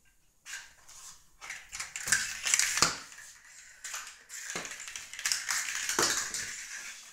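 Maine Coon kitten scrabbling and skittering on a tile floor as it plays: a quick run of clicks and scrapes, loudest about two to three seconds in and again around six seconds.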